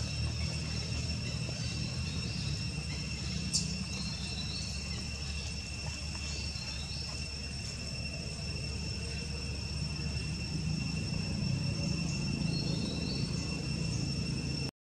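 Steady, unbroken high-pitched insect drone over a constant low rumble, with faint short chirps here and there and one sharp click about three and a half seconds in.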